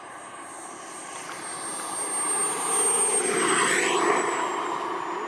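Radio-controlled model jet's K-140 turbine whining with a rushing noise as the jet passes overhead, swelling to its loudest about three seconds in, the whine dropping slightly in pitch as it goes by, then fading.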